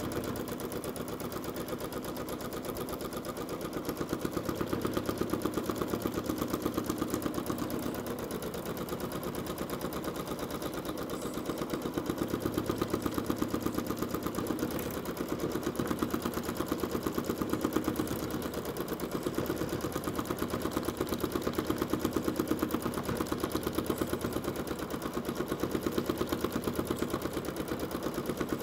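Janome Skyline S9 sewing machine free-motion stitching, the needle running in a fast, even rhythm whose speed rises and falls a little as the quilt is guided.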